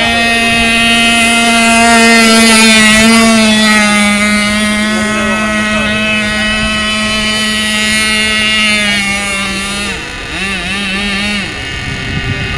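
Nitro-fuelled engine of a radio-controlled FSR racing boat running flat out, a high steady whine that falls slightly in pitch about three seconds in. Near the end the engine eases off, its pitch dipping and wavering, then it drops away.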